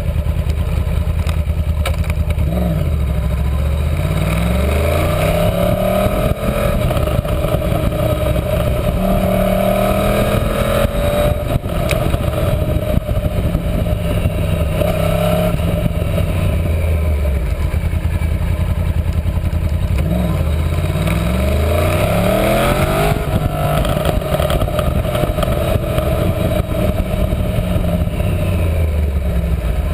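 Yamaha R1 (RN22) with its stock exhaust, its crossplane inline-four heard from onboard while ridden hard. The engine note climbs repeatedly through the revs with gear changes, then drops back on the throttle and downshifts.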